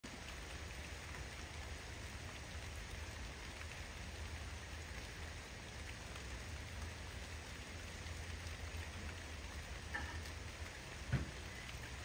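Steady rain falling, with scattered drips ticking through it. A single sharper knock comes about a second before the end.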